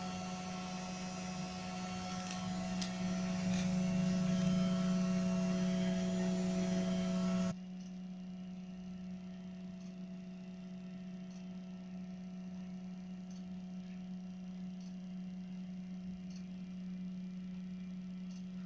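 A steady low hum with overtones, louder and mixed with a hiss for the first seven seconds or so. It then drops suddenly to a quieter hum, with a few faint ticks.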